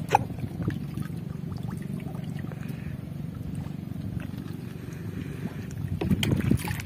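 Water sloshing and splashing as a person wades waist-deep and works a fine-mesh hand net through shallow sea water, over a steady low rumble. There is a sharp splash at the start and a louder burst of splashing about six seconds in.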